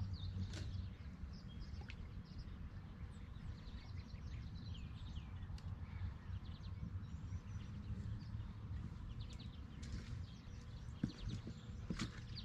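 Small birds chirping and calling, many short high notes scattered throughout, over a steady low rumble. A few sharp clicks come near the end.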